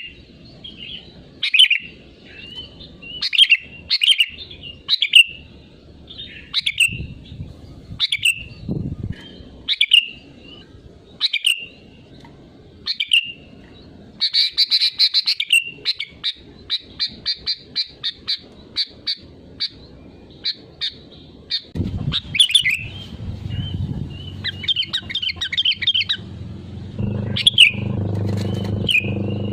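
Sooty-headed bulbul calling: short bright notes about once a second, then a fast run of rapid notes about halfway in, and trilled phrases near the end. A low hum grows louder underneath in the last third.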